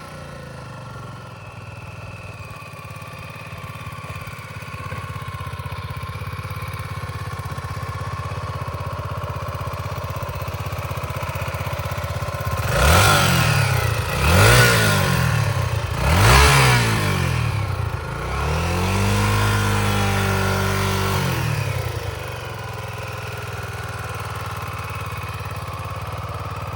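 Honda XR250L's single-cylinder four-stroke engine idling, then revved three times in quick succession about halfway through. It is held at a raised, steady speed for a few seconds, then drops back to idle.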